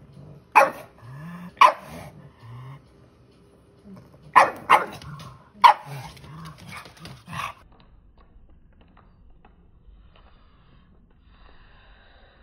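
Pug barking: about six short, sharp barks spread over the first seven seconds or so, with softer grumbles between them.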